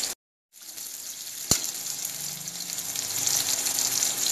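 Sliced onions and cumin seeds sizzling steadily in hot mustard oil in an aluminium kadhai. The sizzle breaks off for a moment just after the start, and a single sharp knock sounds about a second and a half in.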